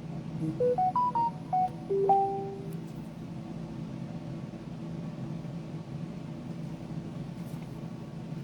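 Short electronic chime jingle: a quick run of about seven keyboard-like notes, ending on a longer low note, followed by a steady low hum.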